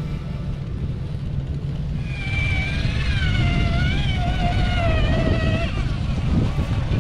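Traxxas TRX-4 RC crawler's electric motor and geared drivetrain whining under throttle as it crawls through sand and rock; the whine's pitch wavers up and down from about two seconds in until nearly six seconds. A steady low rumble runs underneath.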